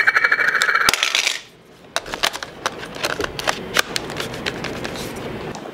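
A short, steady high buzz for about the first second and a half, then a run of small plastic-and-metal clicks and taps as a lens is handled and fitted to a camera body.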